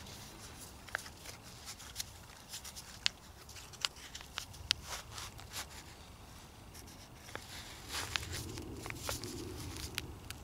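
Scattered sharp metallic clicks and light rustling from a folding multitool being handled: drawn from its nylon belt pouch, opened and put back. A low rumble runs underneath.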